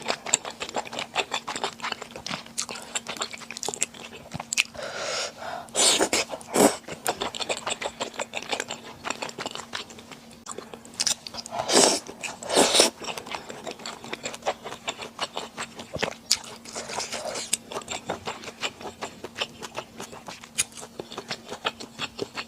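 Close-miked eating sounds: a person chewing and biting Chinese glass noodles and rice balls, with quick wet mouth clicks throughout and several louder bites or slurps along the way. A faint steady hum runs underneath.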